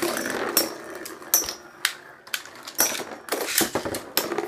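Metal-wheeled Beyblade spinning tops whirring and clacking against each other and the plastic bowl stadium: a run of about eight sharp clicks and knocks, irregularly spaced.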